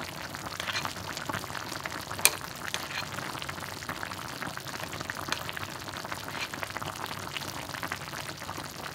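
Chicken braising in a ginger-caramel sauce in a clay pot on the stove, the liquid bubbling and crackling steadily, with a metal spoon scooping the sauce and a sharp click about two seconds in.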